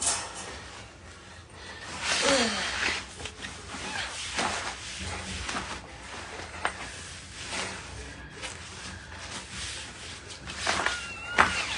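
Scattered rustling and handling noises, with a short falling whine about two seconds in and a brief high squeak near the end.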